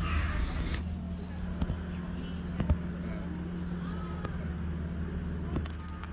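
A steady low hum with a few short, light clicks.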